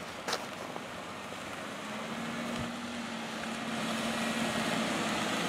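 A car approaching, its engine and tyre noise growing steadily louder, with a short click near the start.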